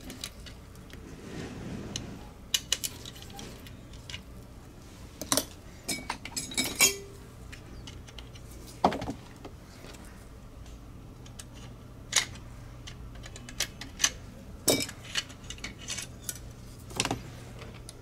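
Irregular small clicks and clinks of a screwdriver and plastic parts as the shell of a Logitech G Pro X Superlight mouse is taken apart.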